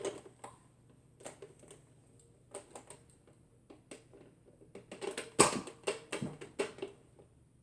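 Small clicks and knocks of a gun being handled and aimed, then a single sharp shot about five and a half seconds in, followed by a few more clicks.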